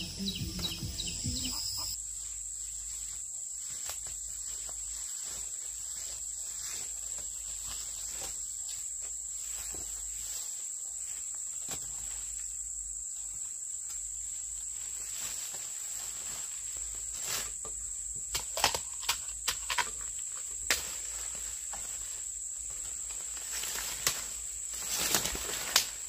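Steady high-pitched insect song held without a break over faint outdoor background, with a scatter of sharp knocks in the second half.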